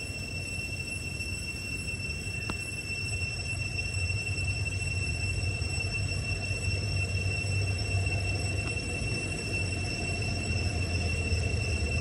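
Steady outdoor background: a low rumble, growing slightly louder, with constant high-pitched whines over it and one faint click about two and a half seconds in.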